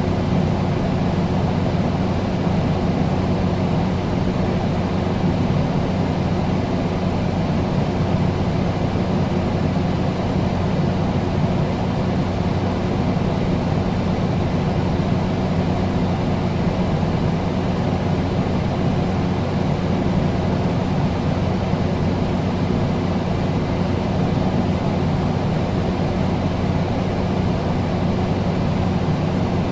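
Air conditioner running steadily: an even rush of air with a constant low hum beneath it.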